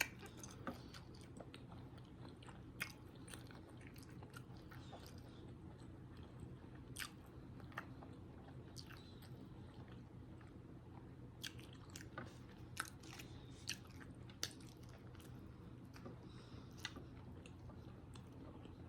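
Faint close-miked chewing of a sausage, egg and cheese biscuit, with scattered soft mouth clicks and smacks over a steady low hum.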